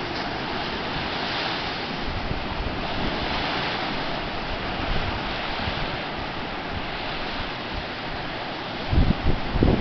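Sea surf washing steadily on a beach, with wind on the microphone gusting near the end.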